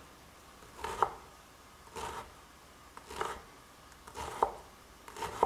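Chef's knife slicing red cabbage into thin shreds on a wooden cutting board: a short crisp cut about once a second.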